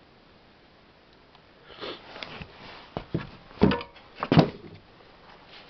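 Ural-2 Elektron chainsaw's recoil starter tugged twice in quick succession, each pull a short rasping whirr as the engine turns over, with a couple of clicks just before. The engine is being cranked to test for a spark and does not fire.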